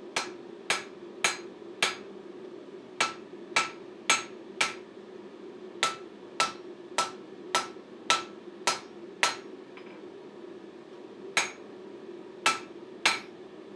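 Hand hammer striking a hot O1 tool-steel axe blank on a steel anvil, about eighteen blows at roughly two a second in four runs with short pauses between. Each blow has a short bright ring. A steady low hum runs underneath.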